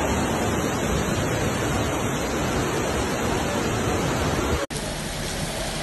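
Heavy rain and wind, a dense steady rush. About four and a half seconds in, it cuts off for an instant and a quieter, hissier rain sound follows.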